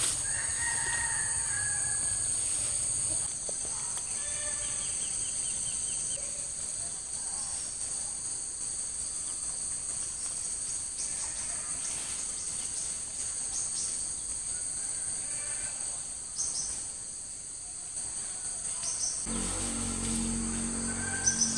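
Insect chorus: a steady high-pitched drone, with a few short bird calls and a brief trill in the first seconds. Near the end a low hum joins in.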